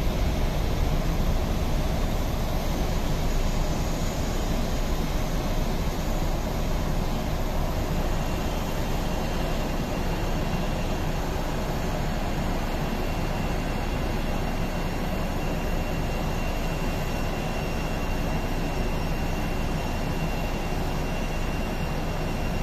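Distant Boeing 747-400 jet engines at takeoff power: a steady rushing noise carried across the airfield that slowly fades as the airliner rolls away and climbs out.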